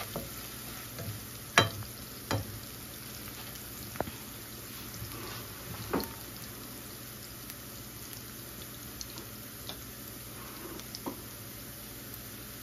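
Diced onion and green chile frying in oil in a skillet: a steady soft sizzle, with a few sharp knocks in the first six seconds, the loudest about one and a half seconds in.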